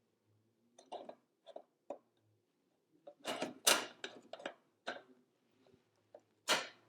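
Small hard parts being handled during computer reassembly: a scattering of short clicks and taps, a denser run of clicks and rattles about three to five seconds in, and one sharper knock near the end.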